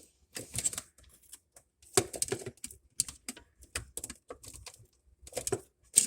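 Irregular clicks, taps and clatter of parts and tools being handled while a refrigerator's defrost components are worked on, with the loudest knocks about two seconds in and near the end.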